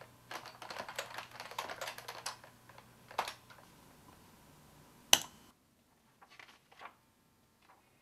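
Typing on a computer keyboard: a quick run of key clicks for about two seconds, then a few scattered keystrokes and one loud sharp click about five seconds in, after which the sound cuts off.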